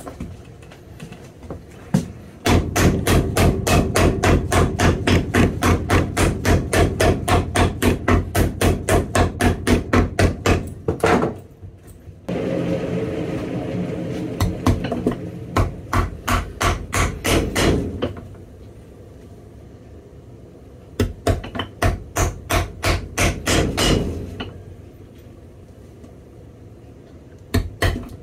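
Rapid, even hammer blows, about four a second, in several long runs with short pauses between them. For a few seconds in the middle a steady noise with a low hum sounds under the blows.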